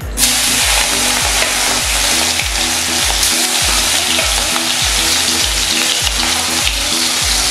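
Raw prawns tipped into hot mustard oil in a kadai, starting to sizzle suddenly just after the start and frying with a steady, loud sizzle while a spoon stirs them. Background music with a steady beat plays underneath.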